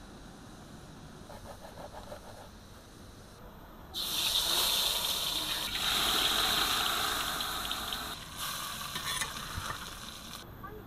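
Hot oil sizzling loudly as diced potatoes are tipped into a wok, starting suddenly about four seconds in after a quiet start. After a brief break near the end it goes on as red chili paste frying in oil in a clay pan.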